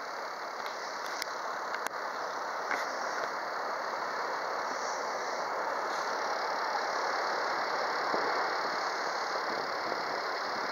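Wildland fire engine's engine running steadily at idle, a constant rushing drone, with a few faint clicks in the first three seconds.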